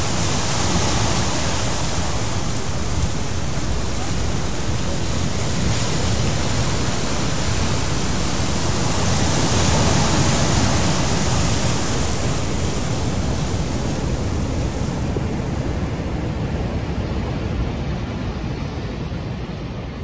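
Steady rushing noise of heavy surf breaking below sea cliffs, mixed with wind on the microphone. It swells about halfway through and fades out near the end.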